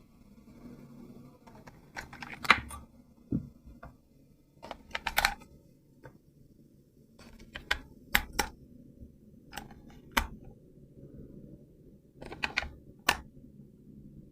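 Hands handling a plastic toy and its packaging: irregular sharp clicks and short rustling bursts, about a dozen, the loudest a couple of seconds in.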